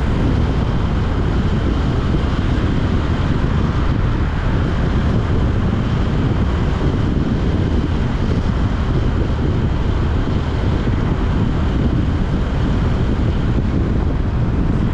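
Steady wind rumble on the microphone mixed with the road noise of a moving vehicle, loud and unbroken.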